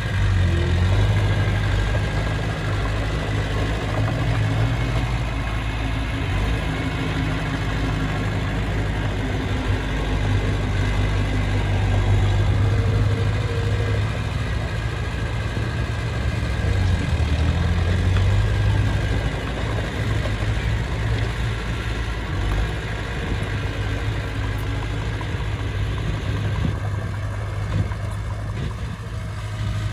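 A heavy construction machine's diesel engine running steadily, its level rising and easing off several times.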